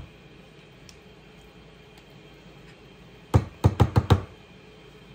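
Five quick, loud knocks in under a second, about three seconds in, from a collapsible measuring cup full of ricotta being tapped while the cheese is measured out.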